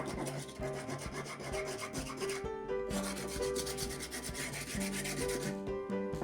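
Quick repeated rubbing strokes of an abrasive on metal, as in hand-sanding rust off an old blacksmith's tongs, over background music.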